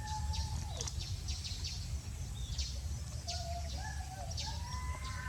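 Birds chirping: many short, high chirps and a few longer whistle-like notes over a steady low rumble.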